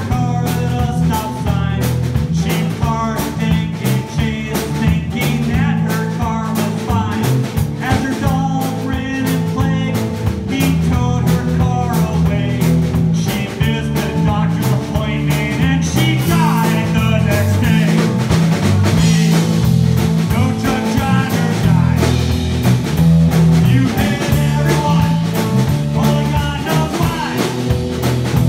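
A rock band playing live: electric guitar lines over a steady bass and drums.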